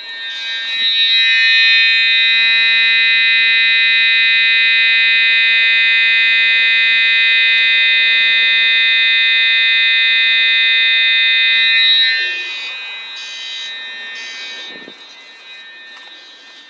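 Household fire alarm sounding under test: one loud, steady, shrill tone held for about eleven seconds, then cut off. A few short, fainter sounds follow.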